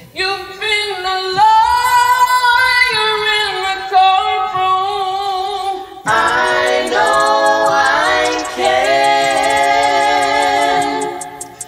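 Music: wordless sung vocals holding long, slightly wavering notes, in two phrases with a short break about six seconds in.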